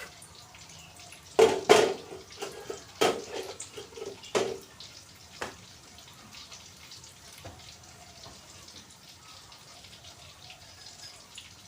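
Metal pots or utensils clanking several times in the first five seconds, with water trickling and dripping underneath.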